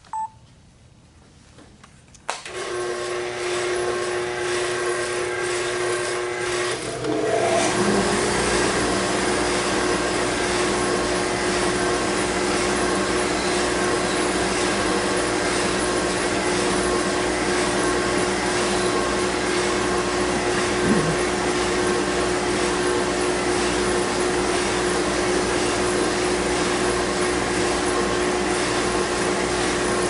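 Benchtop spindle sander switched on about two seconds in and running steadily with a motor hum, a carved wooden bird's beak held against its 60-grit sleeve to round it off. The noise grows louder and deeper about seven seconds in.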